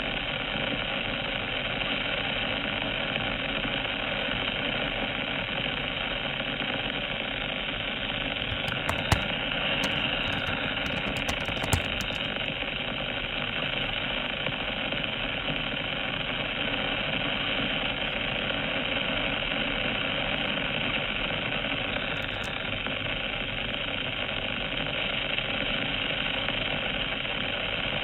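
Steady drone of a small electric fixed-wing FPV plane's motor and propeller with wind rush, heard through the analog video link's onboard audio, which is cut off above the mid-treble. A quick run of keyboard typing and mouse clicks about nine to twelve seconds in.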